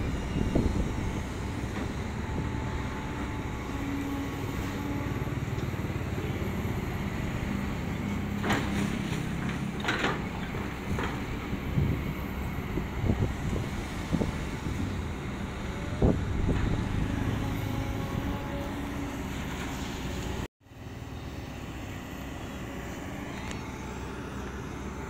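Kobelco long-reach excavator's diesel engine and hydraulics running steadily while it works the bucket. A few sharp clanks come from the machine, and the sound breaks off for an instant about twenty seconds in.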